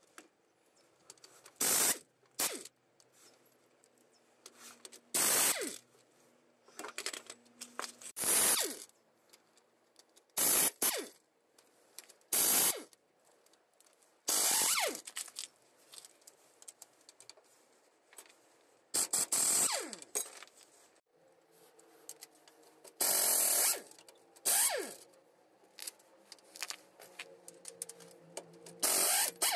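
Impact wrench loosening bolts on a truck axle, run in about a dozen short bursts with pauses between. Some bursts wind down in pitch as the trigger is let go.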